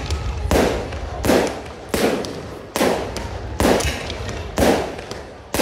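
Fireworks going off in a steady series, a sharp bang roughly every second, six or seven in all, each trailing away in an echoing rumble.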